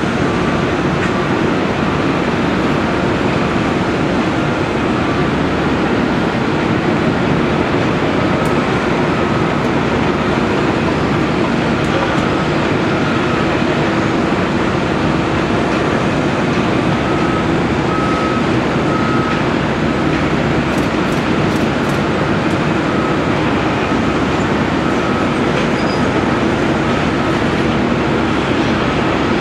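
Link-Belt 330LX hydraulic excavator working steadily as it digs and moves dirt: a constant heavy machinery din, with a faint high whine that comes and goes.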